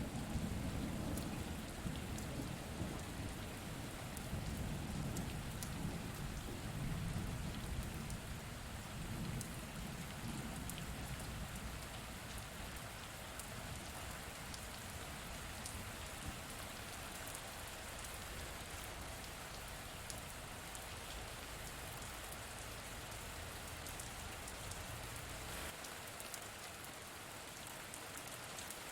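Steady rain falling, with a fine patter of individual drops, during a thunderstorm. A low rumble of thunder rolls through the first ten seconds or so and fades, leaving the rain on its own.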